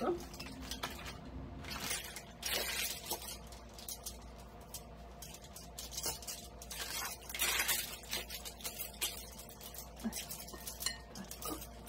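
Aluminium foil crinkling in short, repeated rustles as hands roll raw minced meat up in it, with soft squelching of the meat.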